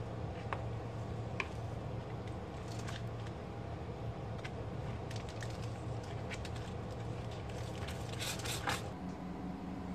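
Plastic slotted spatulas scraping and tapping on a foil-lined baking tray as baked fish are turned over, with scattered light clicks and crinkles of the foil and a denser run of scrapes about eight and a half seconds in. A steady low hum runs underneath.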